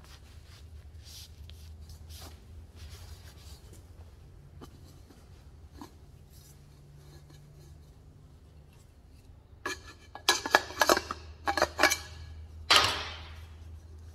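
A cloth rag rubbing over a bare mild-steel intake pipe, wiping the factory oil off it, over a steady low hum. From about ten seconds in come a run of sharp metallic clicks and knocks as the pipe is handled, the loudest a single knock near the end.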